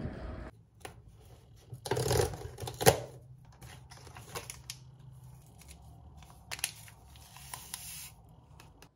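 A cardboard box of coffee mix being handled and its flap torn open, a loud rustling scrape that ends in a sharp click about three seconds in, then lighter clicks and scrapes as a spoon works in a ceramic mug. Brief wind on the microphone at the very start.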